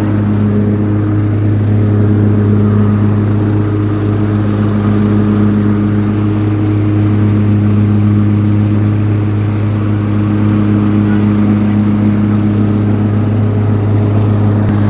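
Cub Cadet riding lawn mower's engine running at a steady, even speed while mowing.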